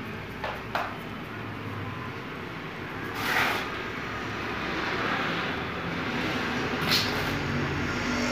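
Hand work at a plastered wall: a few short scrapes and a brief rasp over a steady low background rumble.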